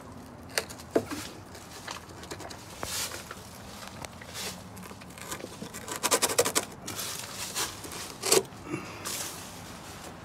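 A hand scraping and picking at a wooden beam joint, giving irregular clicks, scratches and crackles, with a quick run of crackles about six seconds in.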